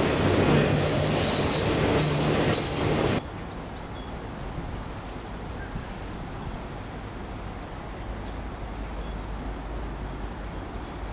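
Freight train's autorack cars rolling past at close range, the wheels squealing over a loud rumble; the sound cuts off abruptly about three seconds in. After that comes a much quieter, steady low rumble from an approaching diesel locomotive, growing a little near the end.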